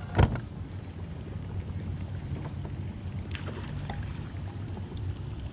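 Baitcasting reel being cranked steadily to retrieve line after a cast, following a low thump about a quarter-second in.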